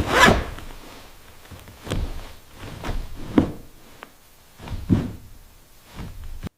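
A series of irregular wooden knocks and thuds, roughly one a second, the first the loudest, as timber is handled or struck; the sound cuts off abruptly near the end.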